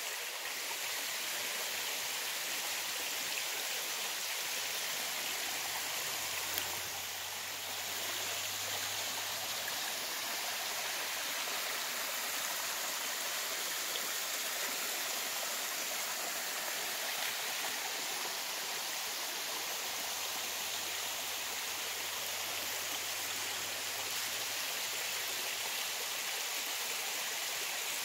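A tall waterfall's steady rush of falling and splashing water, its flow only modest.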